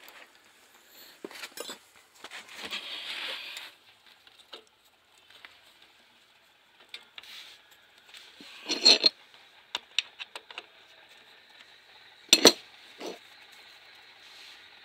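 Scattered metal clinks and knocks from hands and tools working on the fuel injection pump and injector pipe fittings of a Yanmar four-cylinder diesel generator engine, with two louder knocks in the second half. A few seconds of rustling come near the start. The engine is not running.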